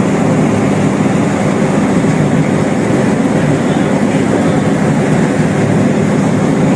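Steady, loud drone of a tanker's machinery, an even rumbling hum with no change in level.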